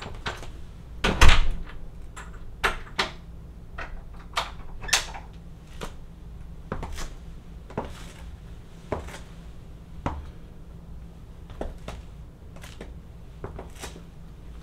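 Platform stiletto boot heels striking a hard wood-look floor: separate sharp clicks, irregular and about one a second, with a louder knock a little over a second in.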